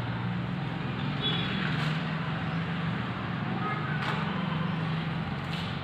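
Feed grinder plant running steadily: a continuous machine hum over an even rushing noise, with a few faint ticks.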